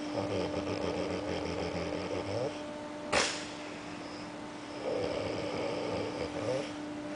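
A sleeping man snoring: two long drawn-out snores, with a single short, sharp burst of noise about three seconds in between them. A steady whine from outside runs underneath.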